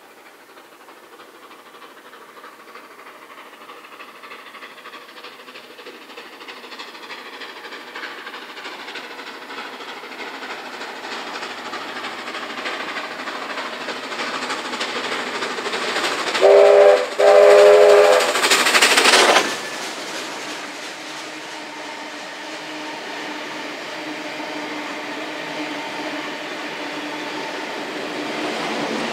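Steam locomotive 3237, a NSW 32 class 4-6-0, approaching and steadily growing louder, then giving two whistle blasts, a short one and a longer one, as it passes beneath at its loudest. Its carriages then roll by over the rails with a steadier, quieter rumble.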